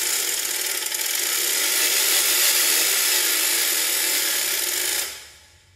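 Kolberg coarse orchestral ratchet with a crank: wooden tongues snap over a turning cogwheel as the crank is turned, making a dense, very rapid rattle. It holds steady and then stops about five seconds in.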